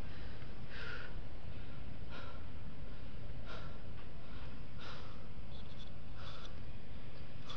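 A climber's heavy, rhythmic breathing, a breath about every second and a half, over a steady low rumble.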